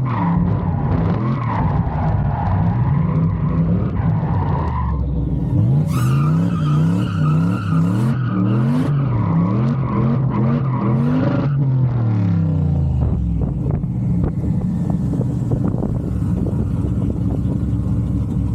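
Turbocharged LS V8 of a drift truck revving up and down again and again under throttle while the tyres skid and squeal. A little past halfway the revving stops and the engine settles to a steady, lower drone.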